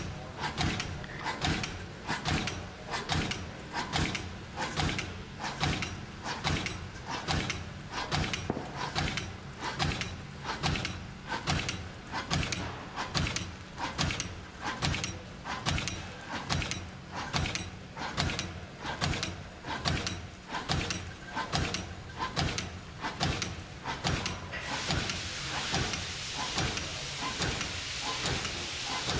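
Center seal pouch making machine running: its shear knife and cross sealer clacking in a fast, even rhythm of about two strokes a second. A steady hiss joins near the end.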